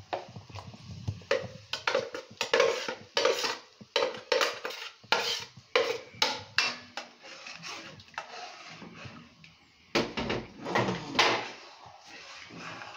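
A metal spoon clinking and scraping against a blender jug and a metal cooking pot as blended oats are scraped out and stirred into hot water, in irregular knocks and scrapes, with a longer run of scraping and stirring about ten seconds in.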